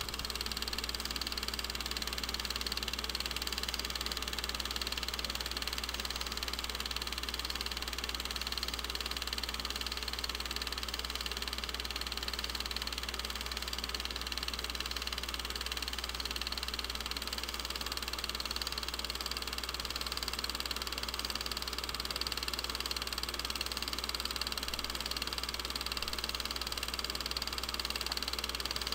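Steady mechanical running noise over a constant low hum, unchanging throughout with no separate events.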